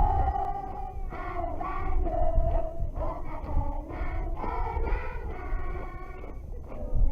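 Singing: a slow tune with long held notes stepping between pitches, over a steady low rumble.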